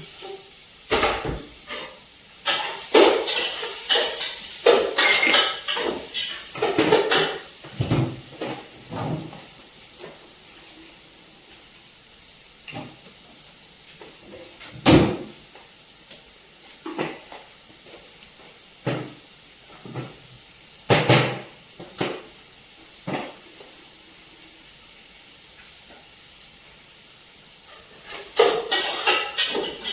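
Metal cooking utensils clattering and scraping against a pot in irregular bursts, dense at first, then single knocks spaced a second or two apart, a quiet stretch, and a fresh burst of clatter near the end.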